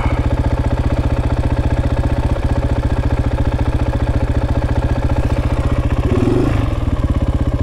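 Motorcycle engine running steadily, with an even pulse that holds throughout and a brief change in its note about six seconds in.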